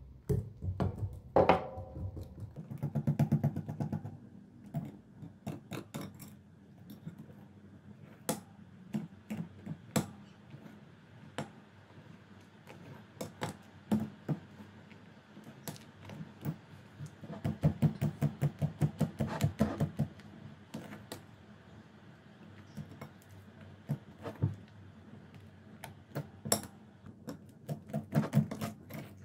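Metal whisk stirring thick foamy slime in a glass bowl: sharp clicks of the wires against the glass, coming in fast runs with pauses between.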